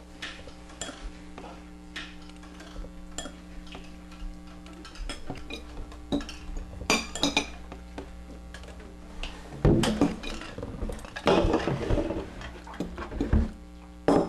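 Kitchen dishes and cutlery clattering and clinking as a bowl and breakfast things are handled and set on a wooden table, loudest near the end, over a steady low hum.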